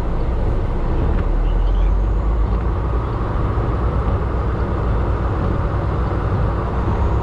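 Heavy truck on the move: steady engine and road rumble.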